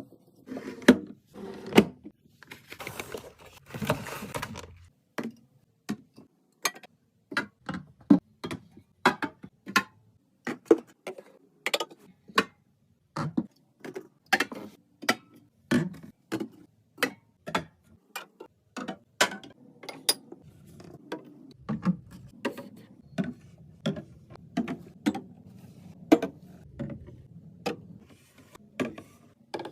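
Food packages and storage containers being set down and moved about in a refrigerator: a steady run of sharp clicks and knocks, about one or two a second, with some rustling in the first few seconds.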